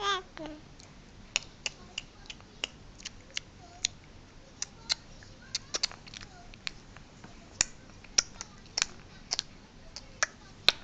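A baby's short coo, then a long run of small sharp clicks from its mouth, two or three a second at uneven spacing.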